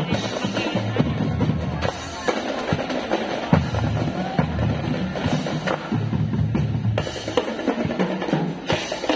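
A drum and lyre corps playing: marching bass drums and snare drums beating out a driving rhythm with rolls, under a melody carried by bell lyres.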